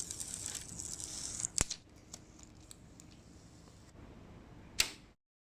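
Handling noise: a hissy rustle or scrape for about a second and a half, then a few faint clicks and one sharper click near the end.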